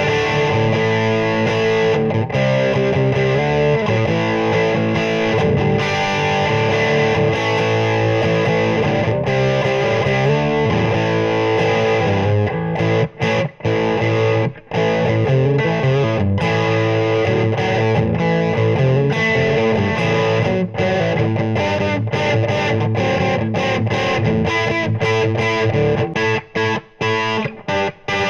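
Oscar Schmidt OE20 Les Paul-style electric guitar with humbucking pickups, played through a VOX VT40X amp on an overdriven setting: distorted chords and licks ringing out, turning to short, choppy chords with brief gaps in the last few seconds.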